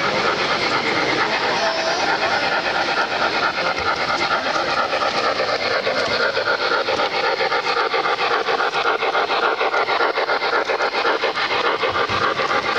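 O gauge model steam locomotive and its string of reefer cars rolling past on three-rail track: a steady clatter of metal wheels running over the rails and switches.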